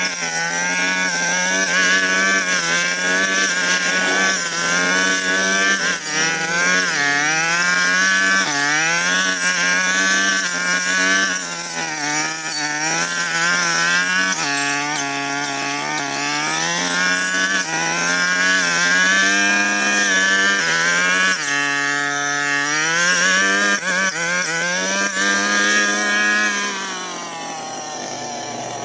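Brush cutter engine running hard while cutting through overgrown brush, its pitch dipping under load and rising again over and over. Near the end it drops back to a quieter, steadier speed.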